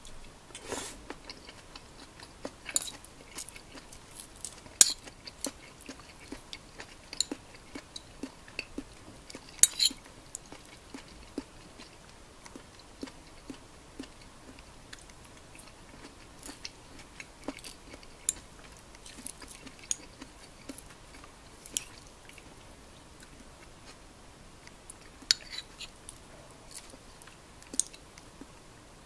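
Eating sounds over a bowl of motsu nikomi (simmered offal stew): a metal spoon clicking and scraping against a ceramic bowl, and chewing, as scattered irregular sharp clicks over a faint hiss.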